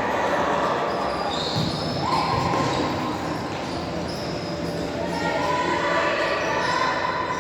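Futsal being played on an indoor court: the ball bouncing and being struck on the floor, with players' voices calling out, all echoing in a large sports hall.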